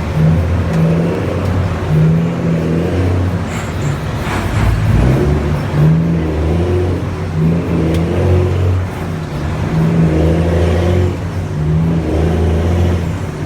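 Big Mack truck's diesel engine running with a deep, steady rumble, its pitch rising and falling a few times as the revs change.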